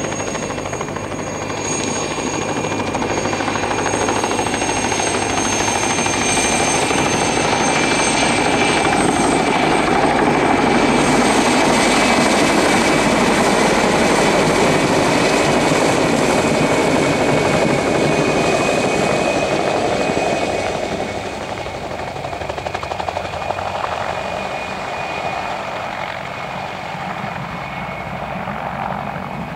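PZL-Świdnik Mi-2 helicopter in flight: rotor thrum with the steady high whine of its twin turboshaft engines. It grows louder toward the middle, then drops off somewhat after about twenty seconds.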